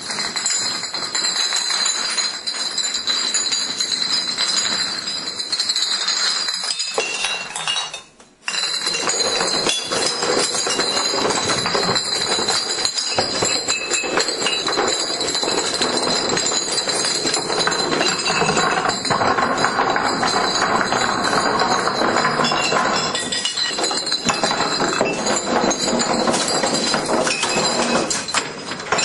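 Glass beer bottles toppling into one another like dominoes, a continuous rapid clinking and rattling of glass on glass, with a brief break about eight seconds in.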